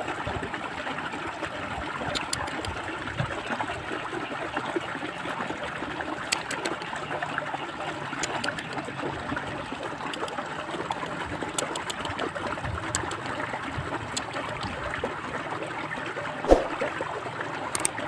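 Water trickling steadily, with one sharp knock near the end.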